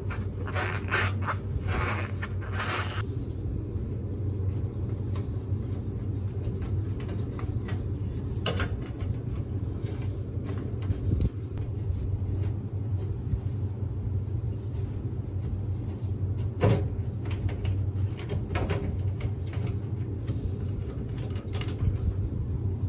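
Hands working insulation out from around refrigerant lines inside a condensing unit: rustling and scraping for the first few seconds, then a few single sharp knocks, over a steady low hum.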